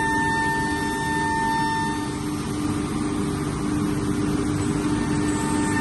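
CNC router running: a steady machine whine over a rushing noise. Its higher tone drops out about two seconds in while a lower tone grows stronger.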